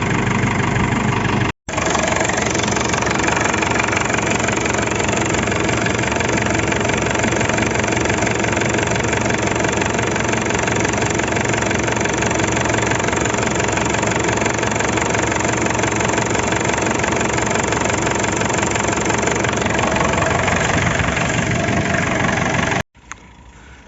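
JCB 4CX backhoe loader's diesel engine idling steadily, running after its fuel system was bled of air. The sound breaks off for an instant about a second and a half in, and cuts off suddenly near the end.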